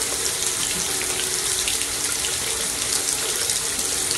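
Bathroom sink tap running steadily, its stream falling on a cat's head and into the basin.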